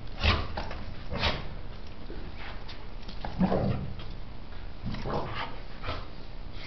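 A dog making short vocal sounds about five times, a second or two apart, some of them sharp and sudden.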